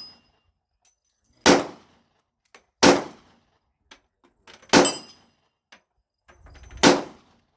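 Four pistol shots, spaced about one and a half to two seconds apart, with the brief ring of a steel target being hit after some of them.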